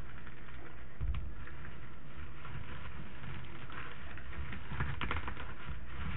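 Dried thyme crackling and rustling as hands crumble and strip the brittle leaves in a plastic bowl: a steady stream of small crisp clicks, thickest in the second half, with low bumps of the bowl being handled.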